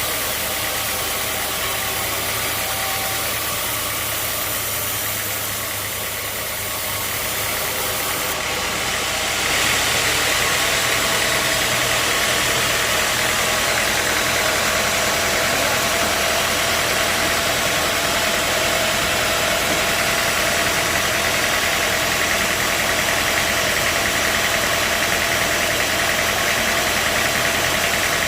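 Sawmill machinery running steadily, with a motor humming underneath; about nine seconds in it grows louder and harsher and stays that way.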